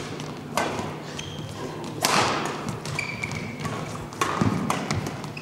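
Badminton rally: rackets striking the shuttlecock with sharp cracks every second or two, the loudest hit about two seconds in, each echoing in a large hall. Short high squeaks of shoes on the court floor come between the hits.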